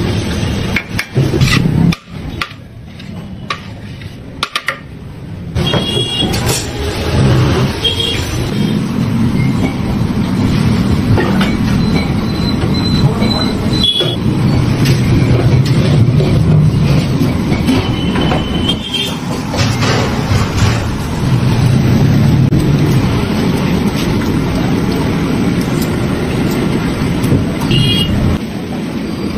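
Steady low rumbling background noise with a few brief high-pitched tones, the level dropping briefly in the first few seconds.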